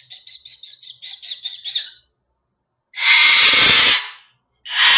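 Moluccan cockatoo giving a quick run of short, high chirps for about two seconds, then two very loud, harsh screeches, each over a second long: its "murder bird" screech.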